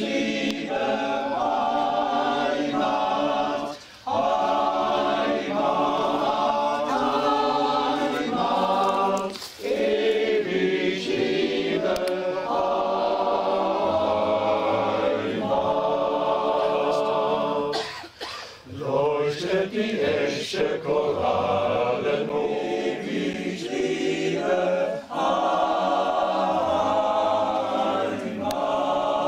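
Choir singing a cappella in parts, with short breaks between phrases.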